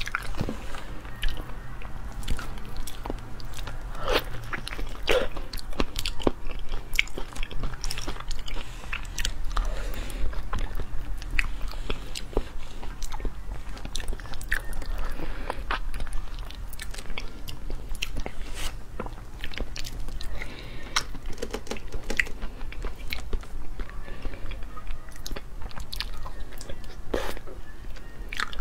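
Close-miked eating of durian flesh through a clip-on microphone: irregular mouth clicks and smacks as bites are taken and chewed.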